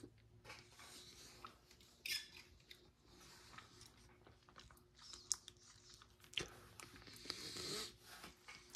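Near silence with a few faint rustles and small handling noises: a short rustle about two seconds in, and a longer faint rustle near the end.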